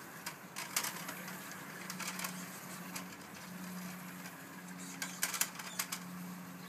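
Faint rustles and a few light clicks from a plush toy being handled and turned on a table, over a steady low hum.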